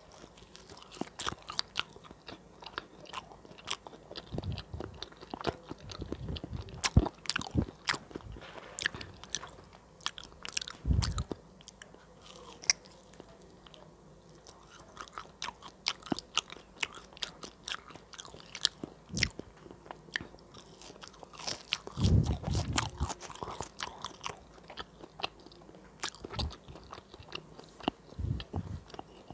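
Close-miked eating of crispy fried banana cake: crunchy bites and chewing with many sharp crackles, and a few heavier bites, the loudest about 22 seconds in.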